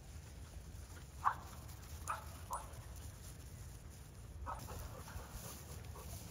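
A dog barking four short times: three barks about half a second to a second apart, then one more a couple of seconds later.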